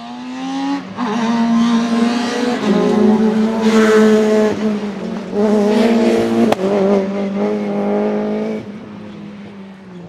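Rally car engine at high revs, its note climbing in the first second and then held hard, with one sharp bang about two-thirds of the way through; it fades over the last couple of seconds.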